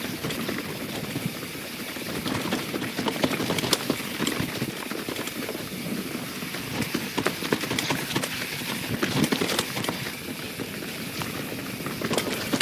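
YT Jeffsy 27 mountain bike descending a wet, rocky, root-strewn trail: tyres rolling over wet leaves and dirt, with frequent knocks and rattles as the bike goes over roots and rocks.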